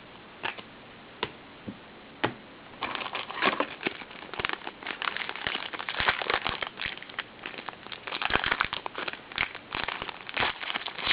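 Crinkling and crackling of a trading-card pack wrapper being handled and torn open, starting with a few light clicks and turning into dense crinkling about three seconds in.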